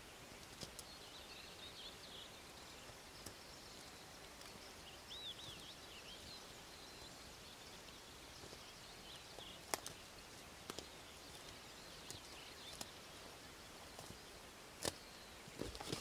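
Quiet open-air ambience with faint distant birdsong in thin, wavering high notes, and a handful of sharp light clicks in the second half.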